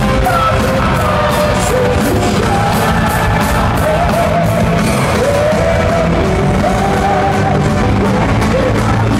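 Power metal band playing live: a singer's long, held, bending vocal lines over full band backing with regular drum hits, loud throughout.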